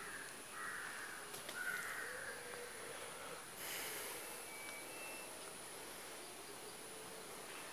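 Quiet outdoor ambience: a steady high-pitched insect drone, with a few faint short chirps and a brief burst of rustling noise about three and a half seconds in.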